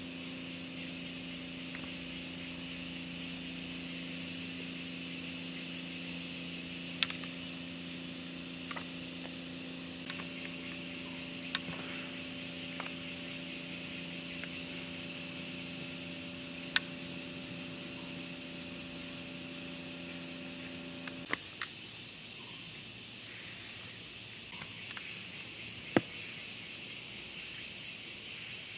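Outdoor background: a steady high hiss with a low, even mechanical hum under it that stops suddenly about two-thirds of the way through. Four sharp clicks stand out, spaced several seconds apart.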